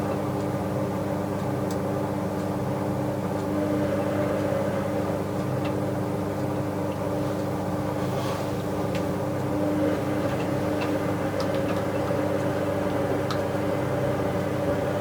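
Bauknecht WA 7778 W front-loading washing machine running steadily, a constant motor hum with a few faint clicks. Its drum bearing is starting to fail, which the owner says was not yet bad at this stage.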